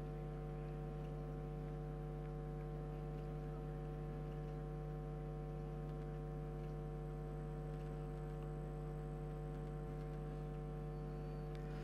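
Steady electrical hum, a stack of several unchanging pitches, with no other sound standing out.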